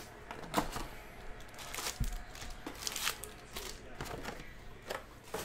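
Cardboard trading-card box being opened and its foil-wrapped packs pulled out and set down in stacks: a run of crisp crinkles and clacks about once a second, with a dull thump about two seconds in.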